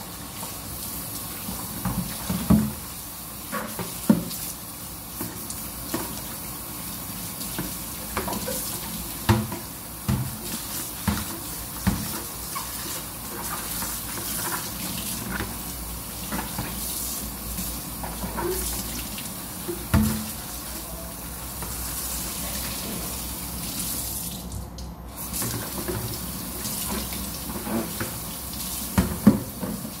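Kitchen tap running steadily into a stainless-steel sink while a cloth and a plastic basin are washed under the stream, with scattered splashes and knocks as the basin is handled. The hiss of the water drops out briefly about 25 seconds in.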